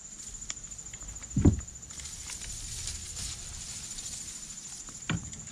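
A steady high-pitched buzz of insects, with one loud low thump about a second and a half in and a soft rustle a little later.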